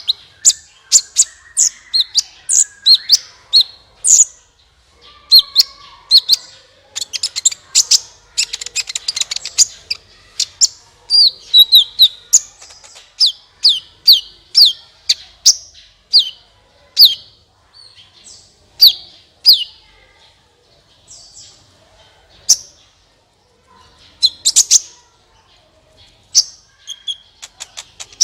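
Sunbird (the Indonesian 'kolibri') singing in a quick run of sharp, high chirps, many sweeping down in pitch, with fast trills in places and a sparser patch with short gaps past the middle.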